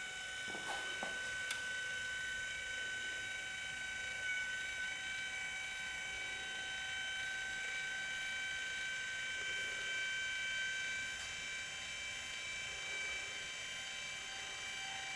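Progressive Automations PA-14 linear actuator with a 5-inch stroke running on 12 volts, its electric motor and gearbox giving a steady whine. It runs smoothly without knocking, as a good actuator should.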